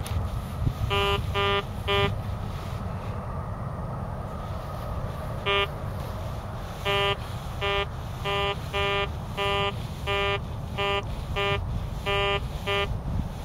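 Metal detector sounding its target tone in short beeps, all at the same pitch, as the coil sweeps over a buried target. Three beeps come about a second in, then after a pause a steady run of one to two beeps a second. The target's readings jump around, and the detectorist takes it for a probable pull tab or a badly corroded zinc penny.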